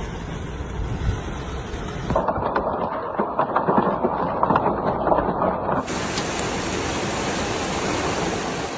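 Heavy rain pouring down, as a steady loud rushing that changes character abruptly twice as one clip of the storm gives way to the next. The middle stretch is full of rapid crackling patter.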